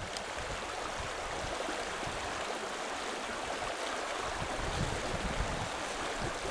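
A shallow river rushing over a gravel bed, a steady wash of running water.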